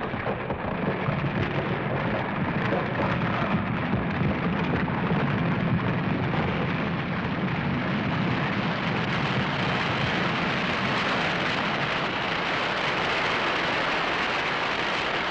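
Tunnel cave-in, the rock and timber collapse of a film sound effect: a continuous rumble of falling rock, deepest in the first half, giving way to a brighter, hissing rush of rubble.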